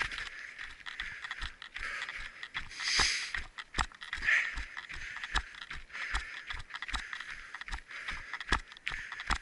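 Footsteps of a person running, thudding evenly about two to three times a second.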